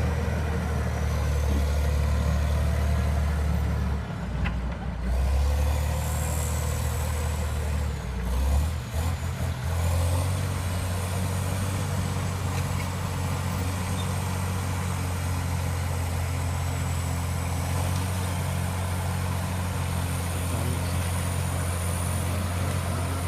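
Caterpillar D7 crawler dozer's diesel engine working under load, a steady low drone that dips and shifts several times between about four and ten seconds in. A faint high whine runs above it.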